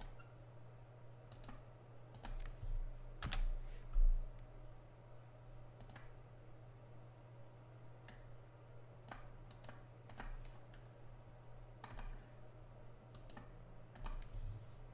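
Irregular clicks of a computer mouse and keyboard, a dozen or so scattered through, the loudest a thump about four seconds in, over a steady low hum.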